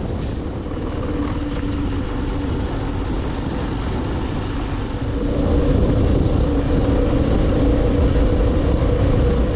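Motorcycle engine running at a steady cruise on a gravel track, with a heavy low rumble from wind and the road under it. It gets louder about five seconds in.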